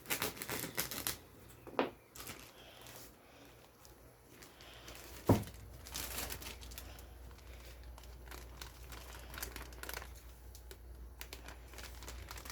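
Crinkling and rustling of packaging with light clicks, as flour is handled and measured out. One sharper knock comes about five seconds in, and after it a faint steady low hum.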